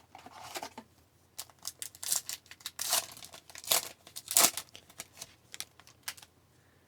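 Upper Deck hockey card pack being torn open and its foil wrapper crinkled: a run of irregular crackling tears that stops about six seconds in.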